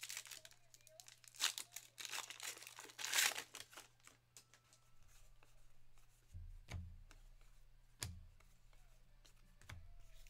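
A trading-card pack wrapper being torn open and crinkling for the first few seconds, followed by three soft thumps in the second half as the cards are handled on the table.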